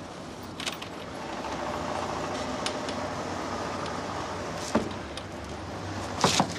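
Steady street and vehicle noise with a few sharp clicks and knocks of doors and latches, the loudest cluster near the end, as a security van's cash delivery is unloaded.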